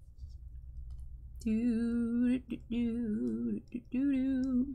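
A woman singing a short wordless tune in three held notes, starting about a second and a half in. Faint clicks of plastic figure parts being handled come before it.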